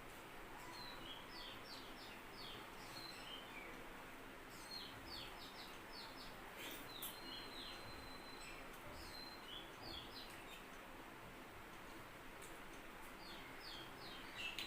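Small birds chirping faintly in the background: several bursts of quick, short, high chirps over a steady low hum.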